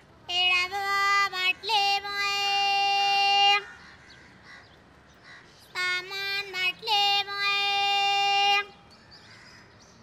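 A bhangarwali, a woman scrap dealer, calling out her sing-song street cry for scrap in a high voice, twice: each call is a few quick syllables ending in a long held note, about three seconds apiece.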